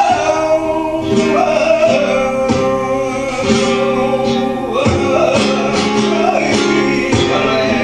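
Flamenco music in the tientos style: a singer's long, wavering held notes over acoustic flamenco guitar with sharp plucked and strummed strokes.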